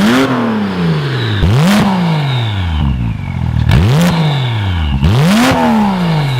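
Porsche 991.2 Carrera S twin-turbo flat-six through an Armytrix valved exhaust, revved in four quick blips. Each rev rises sharply in pitch and falls away more slowly, with a short burst of noise at the top of each.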